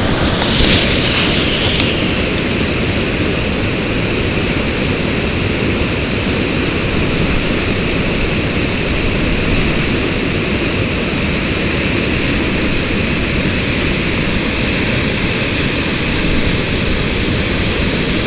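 Whitewater of a large Class 9 river rapid rushing steadily. There is a brief louder hiss in the first two seconds.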